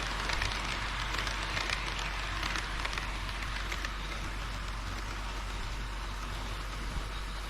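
HO-scale model train running on the layout track: a dense crackle of small wheel-and-rail clicks over a steady hiss, thinning out about halfway through.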